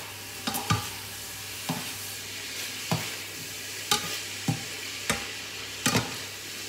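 Pork mince, seafood meatballs and onion sizzling in a frying pan while a metal spoon stirs them. The spoon knocks and scrapes against the pan about once a second over the steady sizzle.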